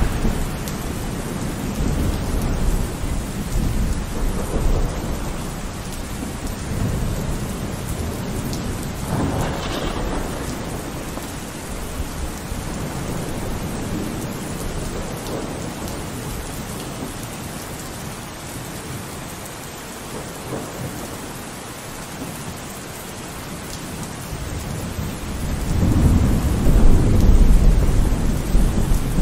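Tropical cyclone wind and heavy rain, with the wind buffeting the microphone in a deep, steady rumble. The storm swells in a gust about ten seconds in, and again more strongly near the end.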